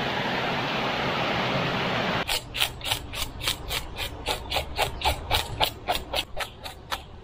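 A steady rushing noise cuts off suddenly about two seconds in. Quick, regular scraping strokes follow, about five a second.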